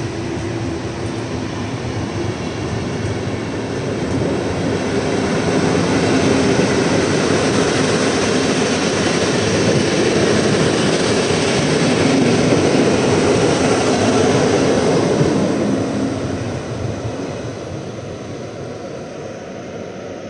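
PKP Intercity passenger coaches rolling past along the platform with a steady rumble of wheels on the rails. The noise grows louder toward the middle and fades away over the last few seconds as the train leaves the station.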